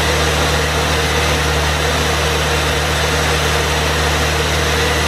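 Turbocharged Honda S2000's four-cylinder VTEC engine idling steadily.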